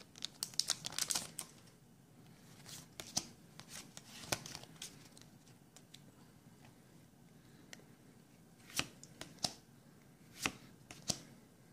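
Foil booster-pack wrapper of Pokémon trading cards crackling and tearing as it is opened, then the cards being handled and flicked one by one, with scattered sharp clicks near the end.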